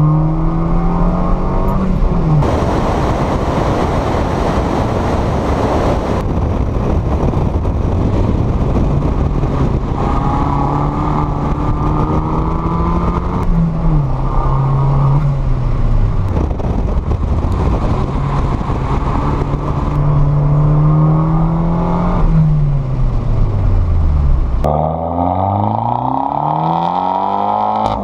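2014 Fiat 500 Turbo's turbocharged 1.4-litre four-cylinder engine driving hard, its pitch holding, dropping and climbing again several times as the car shifts, slows and accelerates. Heavy wind and road noise rushes over it a few seconds in. Near the end the engine drops low and then revs back up.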